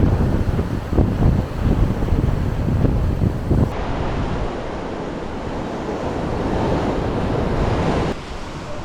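Gusty wind rumbling on the microphone for the first few seconds, then sea waves washing on the shore, swelling and breaking off abruptly near the end.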